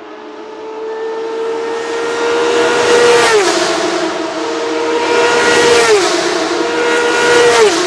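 Dallara GP3 race car's V6 engine accelerating at full throttle toward the listener, getting louder. Its pitch climbs steadily and then drops sharply with each upshift, three times about two and a half seconds apart.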